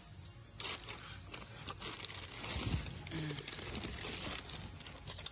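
Plastic bag crinkling and rustling as a gloved hand moves a turbocharger about inside it, with scattered small clicks. It starts about half a second in.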